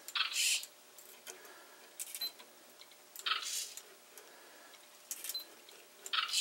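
An automatic kite aerial photography rig at work: its hobby servos whir briefly as they reposition the compact digital camera, and the camera's shutter clicks as it takes a picture when the platform is level. The short bursts come about every three seconds, with single sharp clicks in between.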